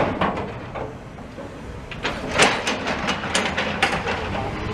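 Wind rumbling on the microphone, with a handful of short sharp clicks and knocks from the camera and mini tripod being handled.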